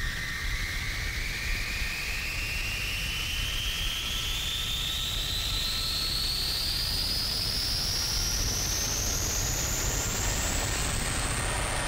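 Industrial electronic music: a slow synthesized tone sweeping steadily upward in pitch over a dense low rumbling drone.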